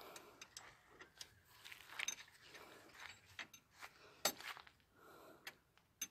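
Hand tools and metal parts clicking and clinking in a car's front suspension as a mechanic works on it while replacing the anti-roll (stabiliser) bar bushings. An irregular series of light sharp clicks, the loudest about four seconds in.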